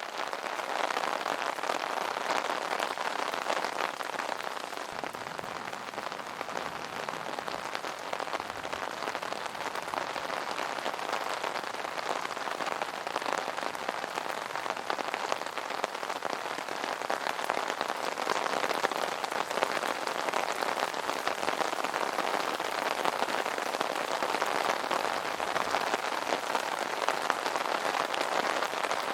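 Steady rain pattering on an umbrella canopy: a dense, even hiss of many small drop hits.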